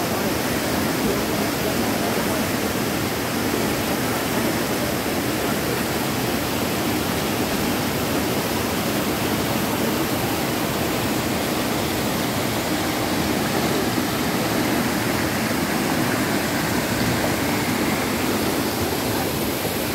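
Waterfall and mountain stream rushing over rocks: a steady, unbroken roar of falling and cascading water.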